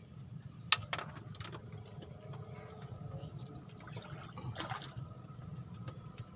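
Water splashing and lapping, with scattered clicks and knocks over a steady low rumble.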